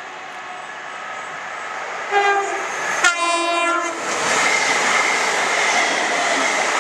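Two-tone horn of an electric multiple unit: a short higher note about two seconds in, then a longer lower note. The train then passes close by with a loud rushing of wheels on rails and a steady high whine.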